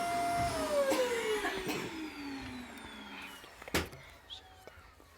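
Vacuum cleaner motor whine that, about half a second in, drops steadily in pitch and fades as the motor spins down after being switched off. A single sharp knock about three and a half seconds in.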